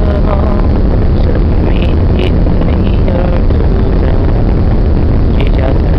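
Loud, steady rumble of a fast passenger boat under way: engine drone mixed with the rush of churning wake water, with faint voices in the background.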